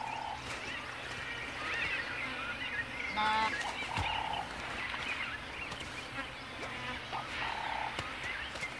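Wild birds calling and chirping, with a short flat whistle-like note repeated three times, about every three and a half seconds, and one brief harsher rising call about three seconds in.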